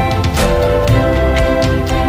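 Background music with a steady beat: held instrumental notes over regular drum hits about twice a second.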